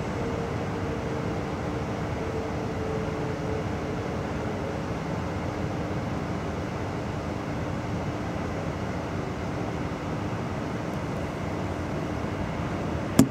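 Steady running noise of a passenger train heard from inside the carriage, with a faint steady hum and one sharp click near the end.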